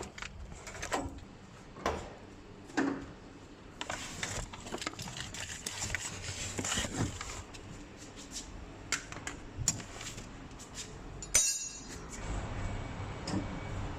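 Scattered metallic clinks and knocks of tools and parts being handled during hands-on car work, with a short rattle about eleven and a half seconds in.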